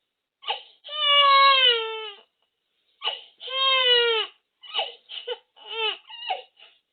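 Four-month-old baby crying after being startled awake by a sneeze. Two long wails, each dropping in pitch at the end, are followed by a string of short, broken cries.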